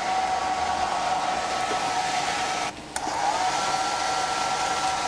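Hair dryer running, a steady whine over rushing air. It cuts out for a moment about three seconds in, and its pitch rises as it spins back up.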